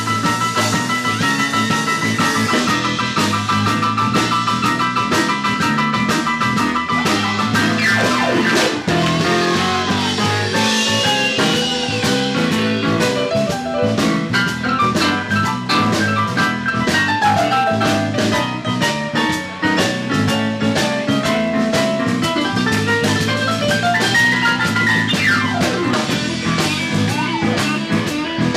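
Live blues band playing an instrumental break, with a lead guitar bending notes over the drum kit and bass line.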